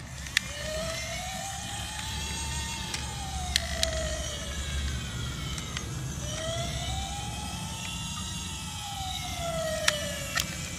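Battery-powered toy fire rescue ladder truck playing its electronic siren: two slow wails, each rising and falling over about five seconds, with a few light clicks.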